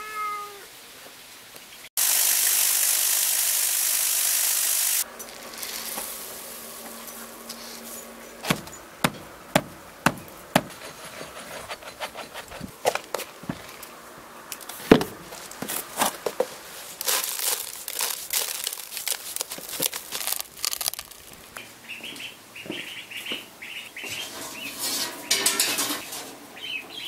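Young chicks cheeping, then a few seconds of loud steady hiss, then a long run of sharp clicks and knocks from hands handling a plastic tub and stone while chick feed is prepared. Near the end, ducklings peep in quick high calls.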